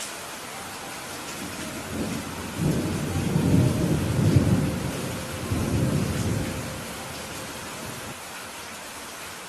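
Steady rain falling on a roof, with a long, low rumble of thunder rolling in about two seconds in, swelling twice and dying away a few seconds later.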